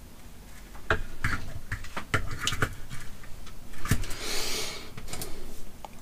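Light clicks and knocks of tools and parts being handled on a soldering workbench, starting about a second in, with a brief hiss about four seconds in.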